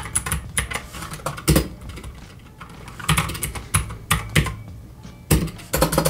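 Royal Kludge RK-61 60% mechanical keyboard being typed on: irregular clicky keystrokes, sparse in the middle and a quick run of keys near the end.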